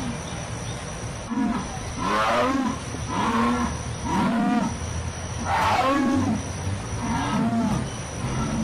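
Jaguar calling: a series of about seven short, deep calls, roughly one a second.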